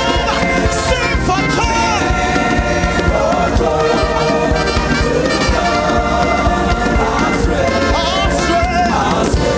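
Live gospel worship music: a band playing over a steady beat while the choir sings.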